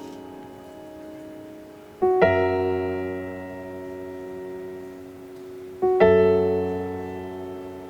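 Slow piano background music: held chords struck twice, each ringing on and slowly fading.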